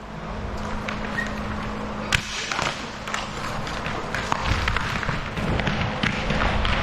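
Hockey play: skates scraping over the playing surface and sharp clacks of sticks and puck, the sharpest about two seconds in, over a steady low hum.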